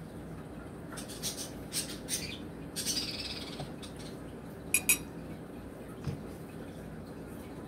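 Eating sounds at the table: a few faint clicks, a short hissy slurp about three seconds in, then two sharp clicks in quick succession, the loudest sounds, typical of a spoon knocking a bowl.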